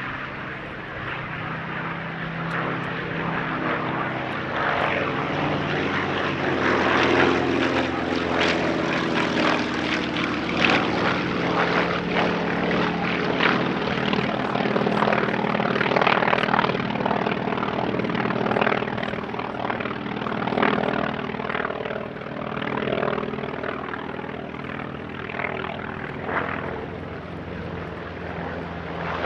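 Propeller-driven World War II fighter's piston engine droning through a display pass, growing louder to a peak in the middle and then falling away.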